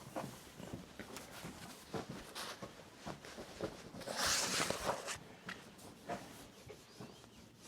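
Rustling and light clicking of things being handled, with a louder burst of rustling about four seconds in.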